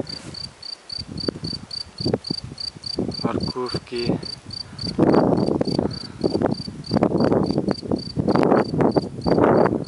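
A cricket chirping steadily, a high pulsed note at about four chirps a second, with bursts of low rushing noise over the microphone in the second half.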